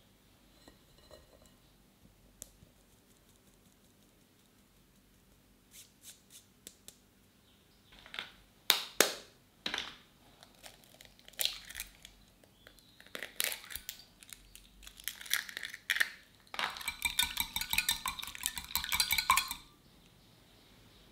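Eggs being cracked and beaten with a wire whisk in a glass measuring jug. Scattered knocks and taps on the glass come first, with two louder knocks near the middle. Near the end comes a fast run of whisk strokes clinking against the glass, lasting about three seconds.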